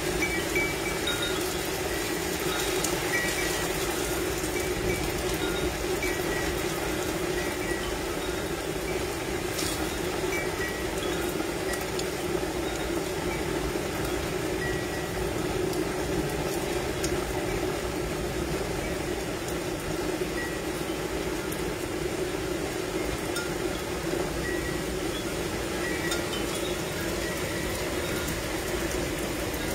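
Tubular wind chime ringing irregularly as storm wind tosses it, its clear tones scattered over a steady rushing noise of strong wind.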